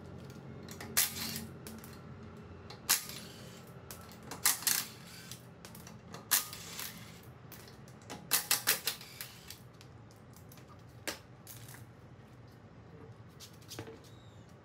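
Metallic clinks and clicks as a car wheel's lug nuts are undone by hand and the wheel is taken off. There are separate clinks spread through, with a quick run of four or five clicks about eight seconds in.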